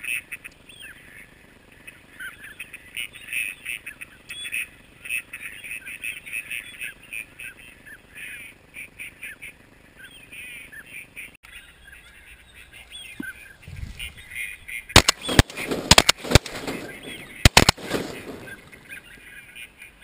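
A flock of ducks quacking and calling for the first half. After a break, a rapid volley of loud shotgun shots, about eight in three seconds, from several guns firing at ducks in flight.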